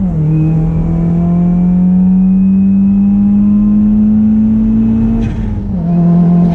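Subaru WRX turbocharged FA20 flat-four engine through an Invidia Gemini R400 exhaust, accelerating with its pitch climbing steadily through a gear. The engine note drops sharply at the shifts, once at the start and again about five seconds in, and the second shift brings a brief whoosh.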